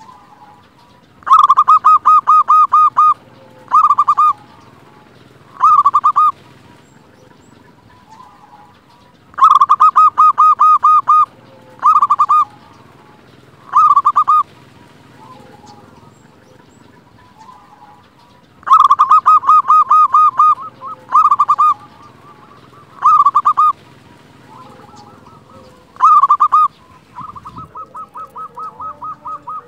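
Zebra dove (perkutut) singing. There are three song phrases, each a fast trilled coo of about two seconds followed by two or three short clipped coos. A fainter, steadier run of rapid coos starts near the end.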